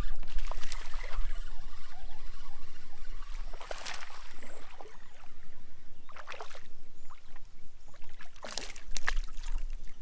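Hooked largemouth bass splashing at the water's surface beside a kayak, with short splashes about four, six and a half and nine seconds in, over a steady low rumble.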